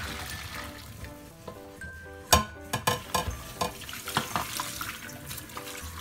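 Steaming hot water poured out into a stainless steel sink, a hissing rush that fades over the first couple of seconds. From a little past two seconds, a metal pan clanks sharply several times against the steel sink as it is rinsed under the tap, with soft music underneath.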